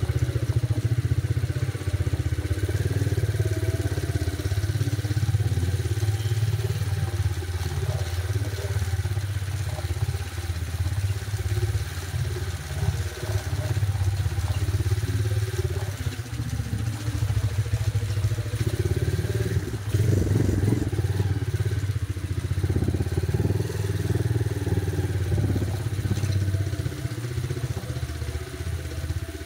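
Motorcycle engine running steadily under way, heard from the rider's seat, with a loud, even low rumble.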